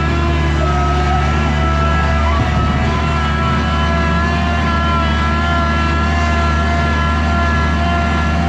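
Bobcat skid steer engine running steadily, with a high whine over the engine note.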